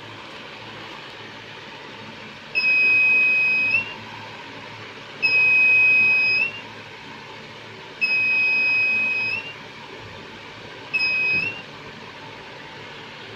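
Electronic buzzer of a homemade laser security alarm sounding four high steady beeps, each about a second long and the last one shorter, each with a slight rise in pitch as it stops. Each beep is the alarm going off as the laser beam is broken. A steady hiss runs underneath.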